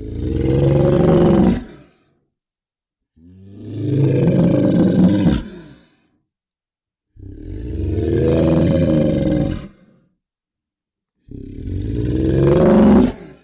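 Monster roar sound effects: four separate roars, each about two seconds long, swelling and then stopping sharply, with complete silence between them.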